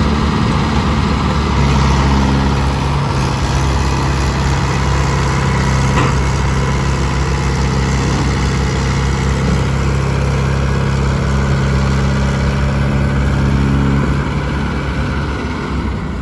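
Heavy diesel engine running at a steady speed, its low even note holding for most of the stretch, then easing off near the end, with a single brief click about six seconds in.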